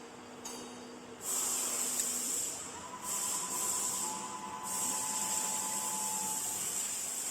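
Compressed air hissing from the 4-spindle CNC router's pneumatics while a bit is positioned for tool-length measurement. The hiss comes in about a second in, drops out briefly twice, then holds steady, with a faint thin whine under it in the middle.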